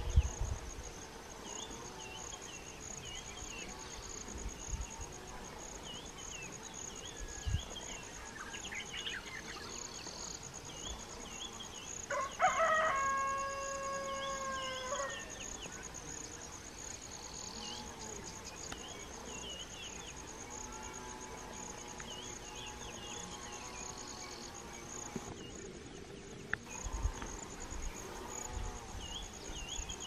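Outdoor background of insects buzzing in a steady high-pitched drone, with small birds chirping again and again. A rooster crows once, about twelve seconds in, in one call of a couple of seconds that is the loudest sound.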